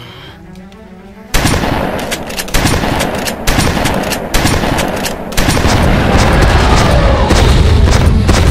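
Loud film action sound effects: a sudden run of sharp bangs starting about a second in, each with a short tail, giving way about five seconds in to a continuous heavy low rumble.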